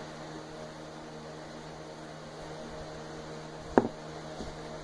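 Steady low electrical hum, with one sharp knock near the end.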